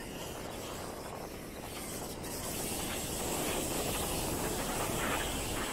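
Rushing noise of waves washing on a sandy beach, mixed with wind on the microphone, swelling about halfway through.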